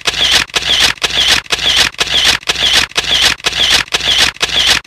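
Camera-shutter sound effect fired in rapid succession, a sharp click-and-whirr about three times a second at an even pace.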